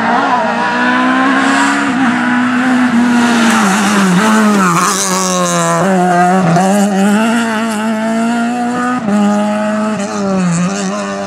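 BMW rally car engine at high revs under hard driving. The pitch drops and climbs again several times as the driver lifts and changes gear. The tyres squeal briefly about halfway through.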